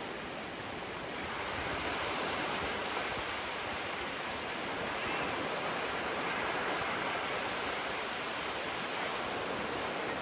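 Gentle sea waves breaking and washing onto the shore, a steady surf wash that swells slightly about a second and a half in.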